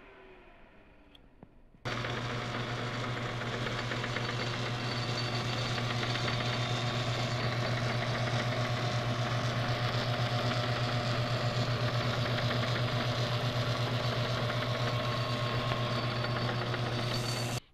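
Electric welding arc laying filler onto the top of a worn bolt, a steady buzzing crackle with a strong low hum. It starts abruptly about two seconds in and cuts off just before the end.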